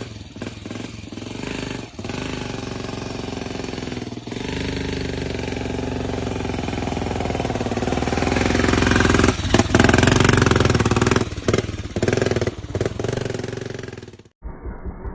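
Motorcycle engine running under load on an uphill ride, with wind and road noise. It grows louder toward the middle and then eases off, and cuts off abruptly near the end.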